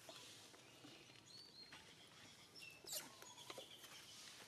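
Quiet outdoor ambience with a few faint, short, high chirps and a single sharp tap about three seconds in.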